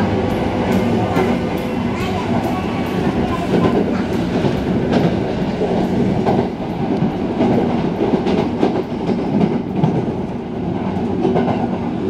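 Sanyo Electric Railway limited express train running at speed, heard from inside the passenger car: a steady rumble with the wheels clicking over rail joints, most busily in the first few seconds.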